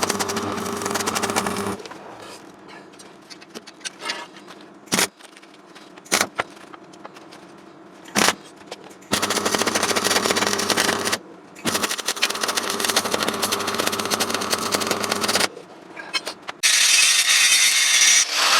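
MIG welder arc crackling as a steel frame is welded: a short run, a few brief tack blips, then two longer continuous runs of several seconds each. Near the end comes a louder, hissier stretch of noise.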